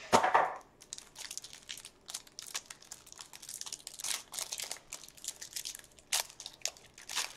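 Plastic wrapper of a trading-card pack crinkling and tearing as it is pulled open by hand, with a louder rustle right at the start and then quick, irregular crackles.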